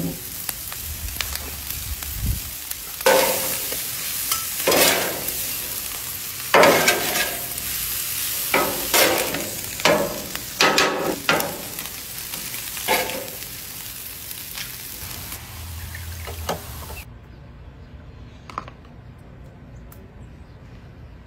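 Ground meat and cheese sizzling on a hot flat-top griddle, with a spatula scraping and chopping through it in a series of about a dozen strokes over the middle stretch. The sizzle cuts off suddenly about three-quarters of the way through, leaving only faint quiet sounds.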